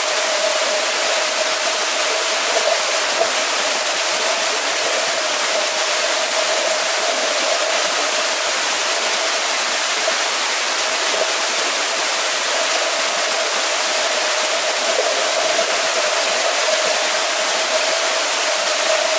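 Swimming pool ambience: an even rush of water and swimmers' splashing blended into a steady hiss, with a steady hum underneath.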